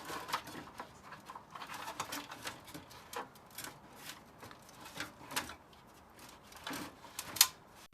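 Irregular light clicks and taps of hand tools and plastic parts being handled while a CRT television's casing is taken apart, with one sharper click near the end.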